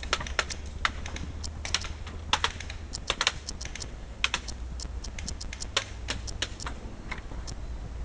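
Airsoft gunfire: scattered sharp clicks, single and in quick pairs, at an irregular pace, over a low steady hum.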